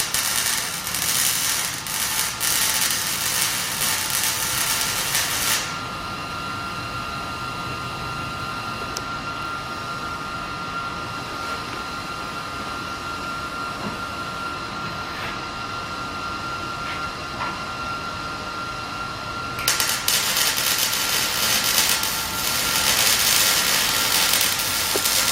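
Power tool working on the steel exhaust downpipe: two long stretches of loud, hissing tool noise, one at the start and one from about twenty seconds in, with a steady high hum underneath throughout.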